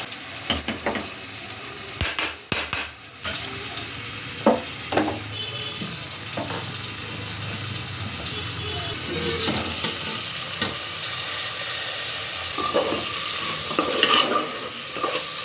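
Food frying in a pan with a steady sizzle, stirred with a utensil that scrapes and knocks against the pan every now and then.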